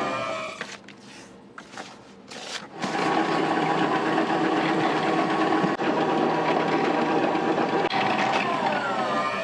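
An electric motor on a kitchen machine winds down with a falling whine in the first half second. It starts again about three seconds in, runs at a steady pitch, and winds down with another falling whine near the end.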